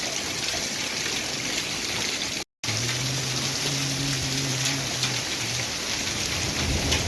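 Heavy rain mixed with hail falling: a dense hiss dotted with many small sharp ticks of hailstones striking. The sound cuts out for a moment about two and a half seconds in, and a low steady hum runs underneath for about three seconds after that.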